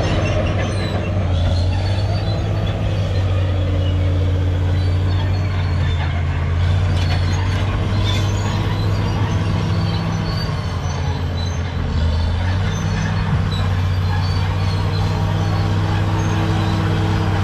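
Caterpillar D7G bulldozer's six-cylinder diesel engine running steadily under load, with faint metallic clinks and squeaks over the engine.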